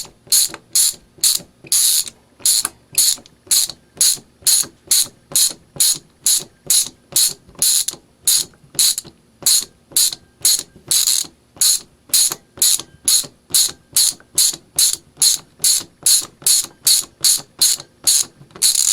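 Vintage 1980s ratcheting screwdriver driving a screw into wood. The pawl clicks on each back-swing of the handle, about two to three strokes a second in a steady rhythm.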